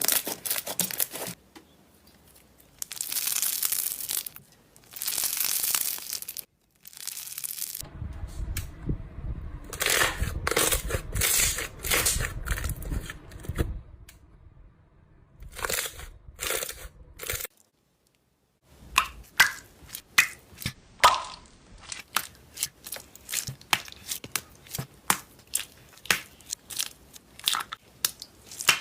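Slime being squeezed, stretched and pressed by hand, in a string of short clips: crackling, tearing and crunching stretches, then many sharp, irregular popping clicks near the end.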